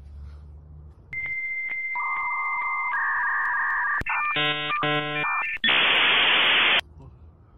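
A run of electronic tones: about a second in, a steady high beep with regular clicks starts, and two-tone warbles join it. Pulsing chords of stacked tones follow. It ends in a loud burst of hiss lasting about a second that cuts off suddenly.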